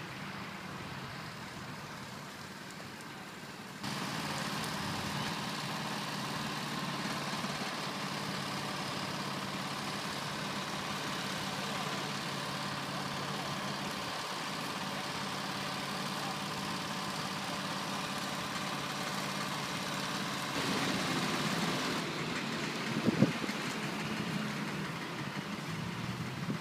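Fire appliance engine running steadily at idle, with a few sharp knocks about two-thirds of the way through.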